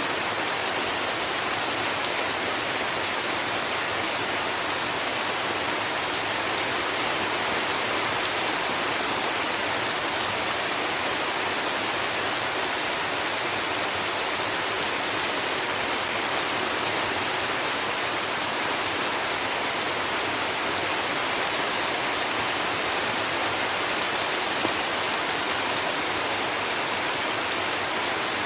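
Heavy rain falling steadily: an even hiss of rain with fine drop ticks through it.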